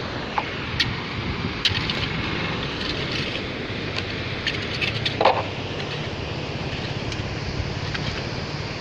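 Steady outdoor background noise with a faint low hum, broken by a few scattered sharp clicks and knocks.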